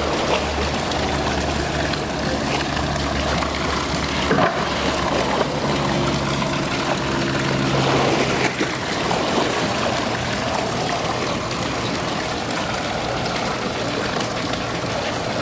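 Steady rushing of water in a polar bear's pool, with a low hum through the first half and a couple of brief knocks.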